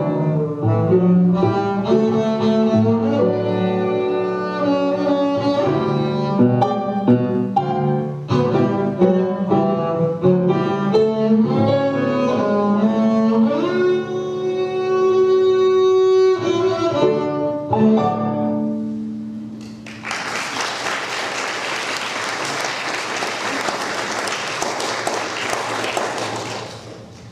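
Double bass bowed with piano accompaniment, playing the closing bars of a piece and ending on a held low note. About 20 seconds in, the audience breaks into applause that dies away near the end.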